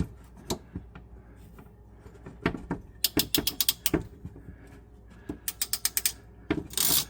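Ratcheting clicks from a PEX crimp tool being worked to close a crimp ring on PEX pipe: a run of quick clicks about three seconds in, another just after five seconds, then a short scrape near the end.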